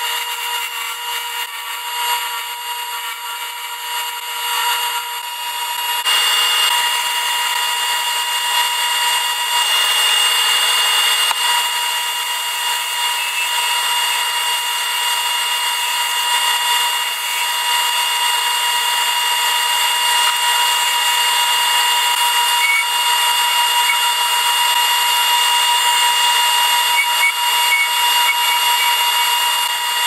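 Wood lathe running with a steady motor whine while a hand turning tool cuts a small spinning piece of wood with a hiss. It gets louder about six seconds in.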